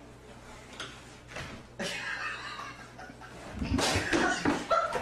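A person laughing, starting about two seconds in and getting louder near the end, with a few low thumps.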